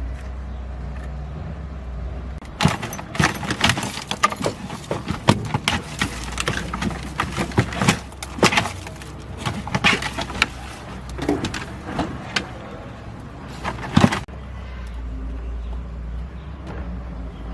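Many quick metallic clinks and clanks, like metal parts or tools being handled, for about eleven seconds, over a steady low hum.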